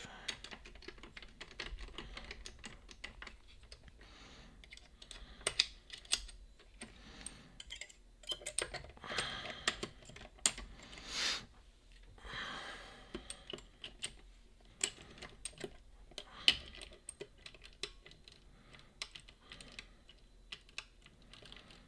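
Lever-lock picking tools working inside a Boda 429 eight-lever deadbolt: irregular small metallic clicks and a few short scrapes as the levers are lifted and the bolt is tensioned.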